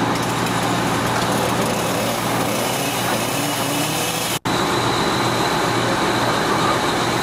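Fire apparatus diesel engines running steadily, a loud continuous drone with a momentary dropout about four and a half seconds in.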